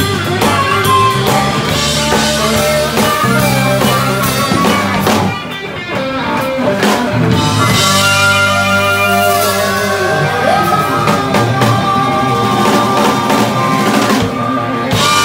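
Live rock band playing: an amplified harmonica wails through a vocal microphone over electric guitars and a drum kit.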